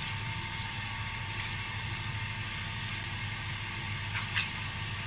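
Lemon half squeezed by hand over floured chicken thighs in a baking tray: a few soft, short squelches of juice and pulp, the sharpest about four seconds in, over a steady background hum.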